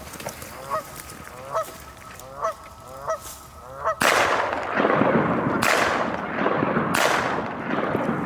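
Geese honking, short calls about once a second. Then a loud rushing noise takes over, with three sudden surges.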